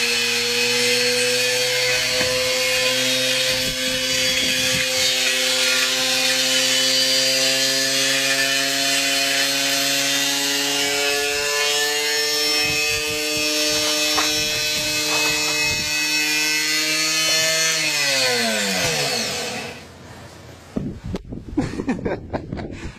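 Washing machine being run to destruction, its drum spinning hard with a steady motor whine and rough grinding and rattling. Near the end the pitch falls as the machine winds down and stops, followed by a few scattered knocks.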